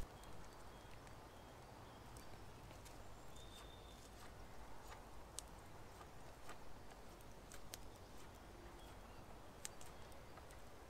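Faint, quiet woodland ambience with a few scattered sharp little clicks and one brief high chirp about three and a half seconds in.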